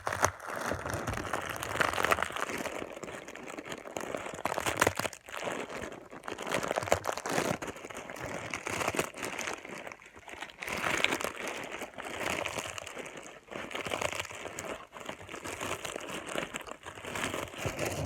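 A packet of dry instant noodles crushed by hand inside its plastic wrapper: crunching and crackling with wrapper crinkle, in repeated squeezes with short pauses. It is a foley trick for the crackle of a campfire.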